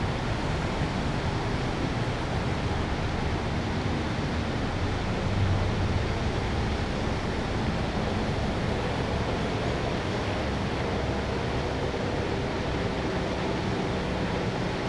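Steady city ambience: a constant low rumble of traffic with a faint mechanical hum, swelling slightly about five seconds in.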